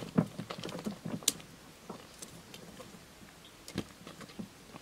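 Footsteps of a person in plastic sandals on dry, cracked mud: quick clicking and crunching steps that grow fainter and sparser as the walker moves away, with a few last faint ticks near the end.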